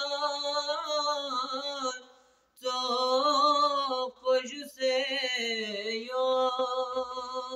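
A boy's solo voice chanting a Balti qaseeda unaccompanied, in long drawn-out notes that waver in pitch. The chant breaks off for a short breath about two seconds in, then carries on.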